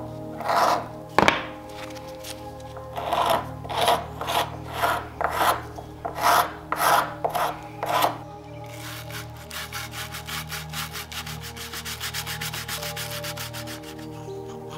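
Metal scraper blade scraping old paint off wooden furniture: separate rasping strokes about two a second, then from about halfway through a fast run of many short scrapes.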